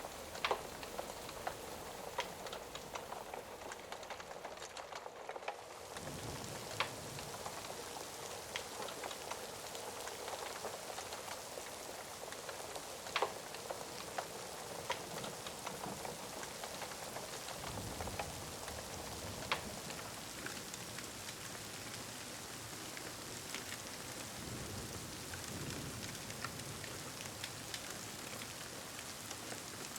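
Steady rain falling, with a crackling fire giving a few sharp single pops now and then.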